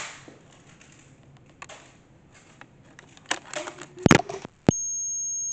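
Plastic clicks from a toy Nerf blaster being handled and primed, then a loud sharp snap about four seconds in as it fires. Near the end all other sound drops out under a steady, high-pitched electronic tone.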